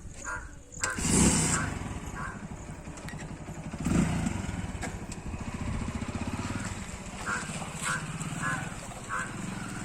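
A vehicle engine running, its steady pulsing rumble swelling about one second in and again about four seconds in.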